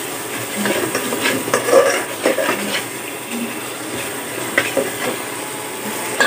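A steel spoon stirs and scrapes a thick, frying spice paste around an aluminium pot, with repeated short clinks and scrapes over a light sizzle.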